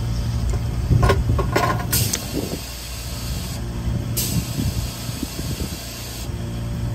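Air-hose chuck on a trailer tire's valve stem, hissing in short bursts (about two and four seconds in) as air is pushed into the flat tire, over a steady low hum.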